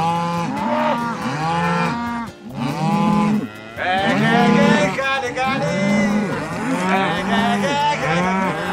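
A herd of cows lowing, many moos overlapping one another, with two short lulls near the middle.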